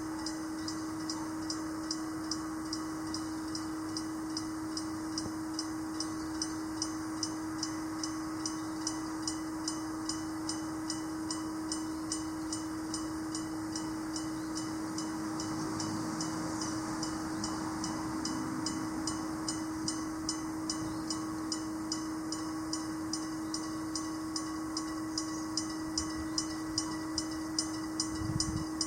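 Japanese electric-bell (denshō-type) level crossing signal ringing, its hammer striking the bell steadily about three times a second over a held ringing tone. A low rumble rises near the end as a train approaches.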